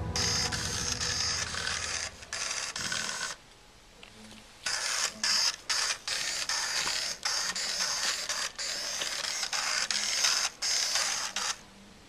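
Small electric motors and plastic gears of a Lego RCX car whirring in stretches, cutting out and starting again several times as the car is switched between forward and reverse. A longer stop of about a second comes near the start, and the whirring stops near the end.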